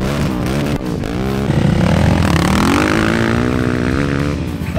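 Two quad bike engines revving hard as they pull away from a standing start. The engine note rises and falls several times, climbing highest about halfway through.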